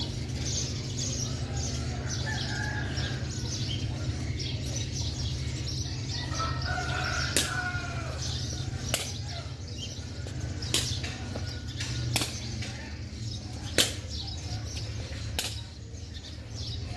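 Sharp hits begin about seven seconds in and repeat roughly every one and a half seconds, like a rally being played back and forth. Under them runs a steady low rumble.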